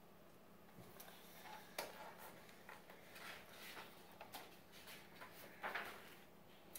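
Pages of a large picture book being turned and handled: faint paper rustles and light taps, starting about a second in.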